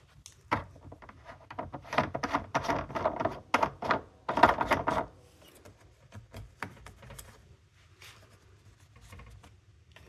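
Handling noise: a rapid, irregular run of clicks, taps and scrapes, loudest over the first five seconds and then dwindling to a few scattered clicks.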